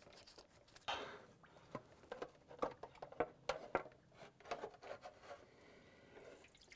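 Automatic transmission fluid dripping and pattering irregularly from the edge of a loosened transmission oil pan that has no drain plug.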